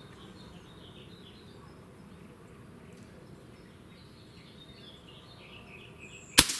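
Birds chirping faintly in the background, then, near the end, one sharp crack of a Hammerli 850 (Umarex 850 M2) .22 CO2 rifle firing a pellet.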